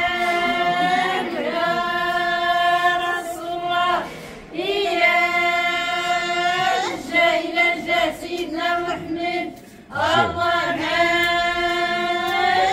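Group of women singing a traditional Moroccan welcome song in chorus, in phrases of long held notes with shorter quick notes in the middle, breaking off briefly about four and ten seconds in.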